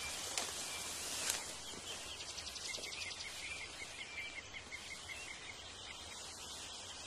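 Tropical forest ambience: a steady hiss of insects, with a bird's run of short repeated chirps starting about two seconds in. Two sharp snaps come in the first second and a half.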